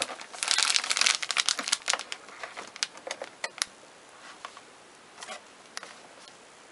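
Thin clear plastic bag crinkling as it is handled. The crackling is dense for the first two seconds, thins out, and has almost stopped about four seconds in.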